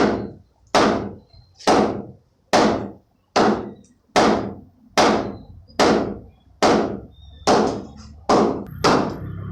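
Hammer blows on wooden concrete form boards in a steady rhythm, a little more than one strike a second, about eleven strikes in all.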